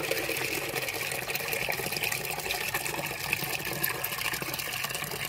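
Water pouring steadily from a float fill valve's outlet into a plastic jug, splashing over into the water in the tank below. The valve is flowing fully open, at about 13 litres per minute.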